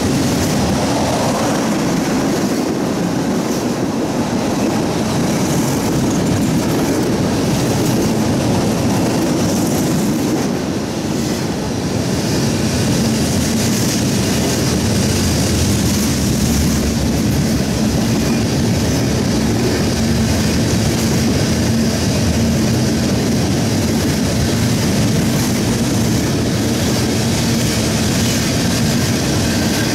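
Freight cars of a manifest freight train rolling past at speed, making a steady rumble and rush of steel wheels on rail. A faint steady hum joins in about halfway through.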